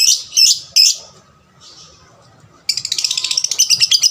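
Young lovebird calling: three sharp, high chirps in the first second, then, from about two and a half seconds in, a fast, continuous run of high chattering notes.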